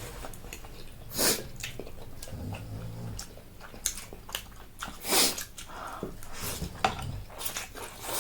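Close-up eating sounds of spicy noodles: chewing and wet mouth clicks, with two loud slurps, one about a second in and one about five seconds in.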